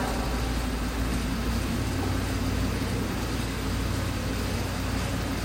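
Steady low mechanical hum with a constant drone and an even hiss over it.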